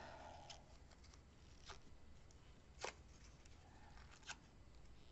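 Faint rustle and a few small clicks of a green cardstock leaf being curled by hand around the shaft of a paper-shaping tool, the sharpest click about three seconds in.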